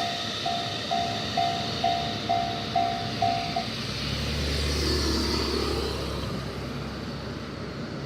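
Japanese level-crossing warning bell ringing in a steady ding-ding at about two strikes a second, then falling silent about three and a half seconds in as the train clears the crossing. A low vehicle rumble follows.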